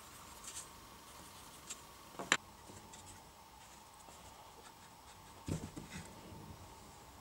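Pencil scratching faintly on MDF board, a single sharp click about two seconds in, then a few low knocks just before the end as MDF boards are handled and set down on a wooden workbench.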